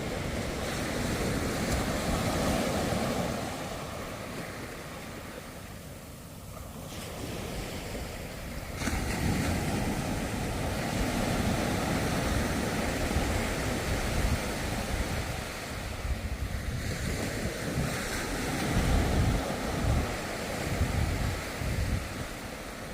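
Ocean surf breaking and washing, swelling and ebbing in waves of noise, with a sudden rise about nine seconds in. Wind buffets the microphone in low gusts, strongest near the end.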